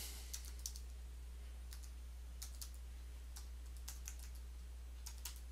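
Faint, irregular keystrokes on a computer keyboard as a command is typed, over a steady low hum.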